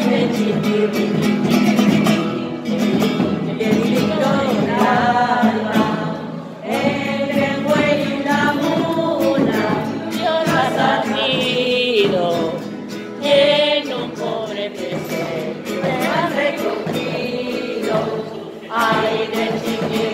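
A woman singing a devotional song, accompanied on classical guitar.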